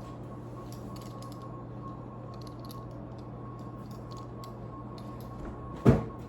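Kitchen handling noises: faint scattered clicks and creaks over a steady hum, then one sharp knock about six seconds in.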